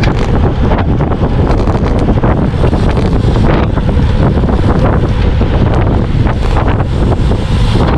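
Steady, heavy wind buffeting a bike-mounted camera's microphone as the road bike rides at racing speed.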